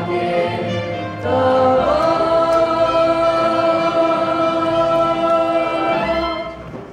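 A stage cast singing together in chorus: a few sung notes, a brief break about a second in, then one long held chord that closes the song and fades out near the end.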